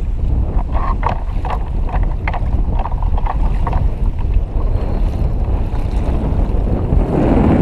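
Strong wind buffeting the microphone over a choppy sea, with a heavy low rumble. A string of short sharp sounds comes in the first half, and a rush of water builds near the end.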